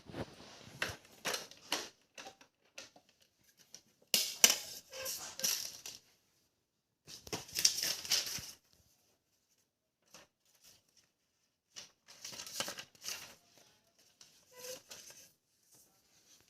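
Plastic toy parts handled in several short bursts of clicking, clattering and rustling, with quiet gaps between.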